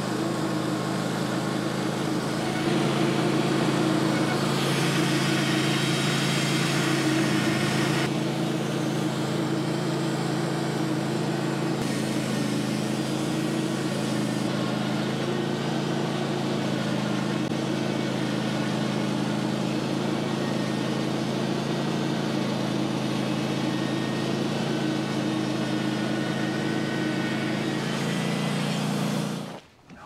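Band sawmill running steadily under load, its engine humming while the blade is fed slowly through a hard, knotty pine log; the saw is struggling, cutting as if through nails. The sound cuts off suddenly near the end.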